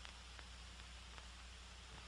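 Near silence: steady hiss and a low hum with a few faint clicks, the background noise of an old film soundtrack.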